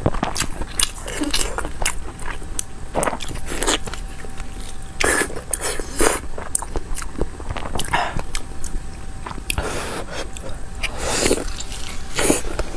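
Close-miked eating sounds: biting into and chewing a pan-fried, meat-filled bun, with irregular crunches and wet mouth sounds.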